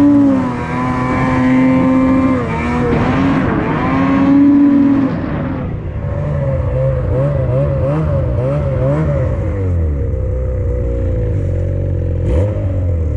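A snowmobile's 600R two-stroke engine revving hard on an uphill climb, its pitch swinging up and down with the throttle. About six seconds in it drops lower and wavers, and around ten seconds in it settles to a steady low idle, with a couple of brief knocks near the end.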